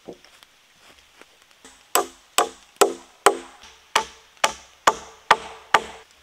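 A hammer driving a nail into a wooden board: about ten sharp blows, two to three a second, each with a short ring, after a softer knock at the start.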